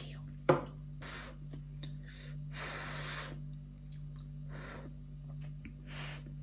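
A person eating spicy Buldak noodles: a sharp click about half a second in, then soft breathy mouth sounds every second or so, over a faint steady hum.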